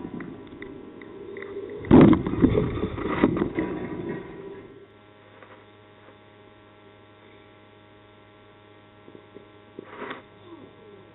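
Wind buffeting the camera microphone outdoors, loudest about two seconds in, then cut off to a low steady hum. Near the end comes a single short crack of a cricket bat striking the ball.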